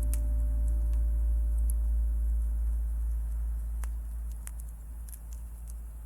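The last chord of a jazz trio dies away: a deep bass note and the ringing vibraphone tones slowly fade. Sharp little crackles of a wood campfire snap through it, more of them near the end.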